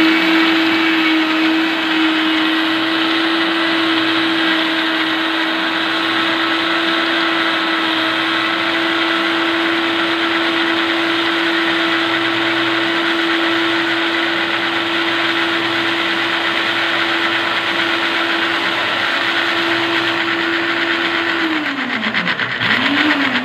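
Countertop blender motor running steadily at one speed, grinding onion, garlic, ginger, shallots and lemongrass with water into a wet spice paste. Near the end it is switched off and winds down, then is given one short pulse.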